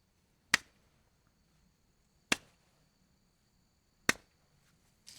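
Three sharp, isolated clicks, evenly spaced about 1.8 seconds apart, with a fainter click near the end.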